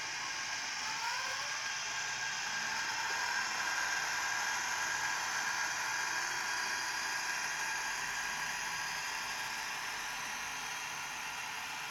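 Sound decoder in a Bemo model of a Rhaetian Railway electric locomotive, playing an electric-motor whine through its speaker as the model runs. The whine rises in pitch over the first second or two as the locomotive picks up speed, then holds steady.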